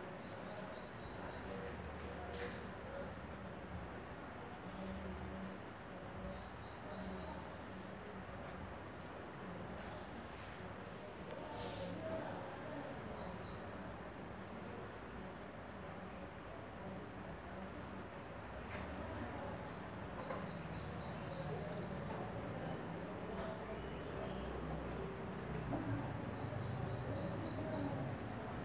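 Insect chirping: a high chirp repeating about twice a second, broken every six or seven seconds by a quick run of four or five chirps.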